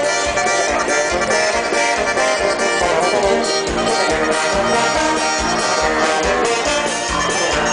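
A live dance band playing, with accordion over a steady drum beat.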